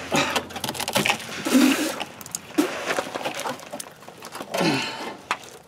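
Old rubber exhaust hangers being twisted and pried off their metal rods: a string of short, irregular rubbing, scraping and creaking noises.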